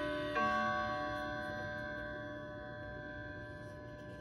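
Hamilton Headmaster wall clock's chime striking its last note about a third of a second in, then ringing on and slowly fading.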